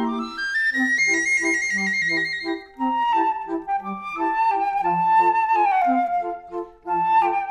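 Background music: a flute-like melody over short, bouncy repeated accompanying notes, with a quick rising run about a second in.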